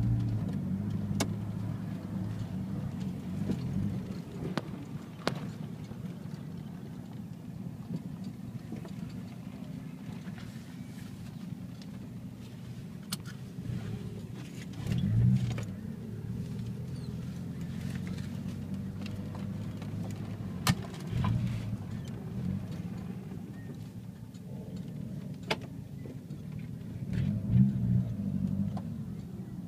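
Car engine running steadily at low speed, heard from inside the cabin as the car rolls slowly along, with brief swells in the engine note about halfway through, again a few seconds later and near the end. Several sharp knocks are heard along the way.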